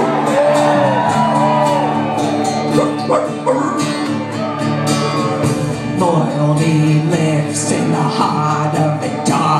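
Live rock band playing: electric and acoustic guitars, bass guitar and drums with a steady cymbal beat, and a voice singing over it.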